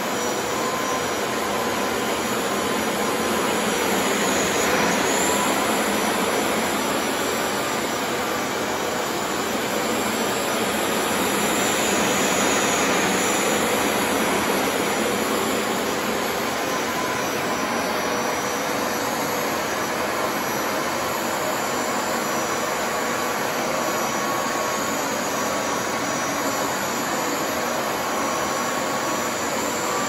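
Hoover TurboScrub carpet washer running steadily as it shampoos a rug, a continuous whooshing suction-motor noise. The level swells slightly a few seconds in and again near the middle as the machine is pushed back and forth.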